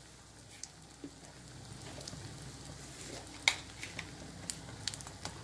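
Faint sizzle of a sambar tempering (mustard seeds, dals, curry leaves, dried red chillies and spice powder) frying in a little oil in a steel kadai. A few sharp clicks sound over it, the loudest about three and a half seconds in.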